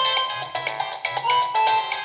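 Nokia 3220 polyphonic ringtone playing: a synthesized melody of short clean notes over a repeating bass line and a steady beat.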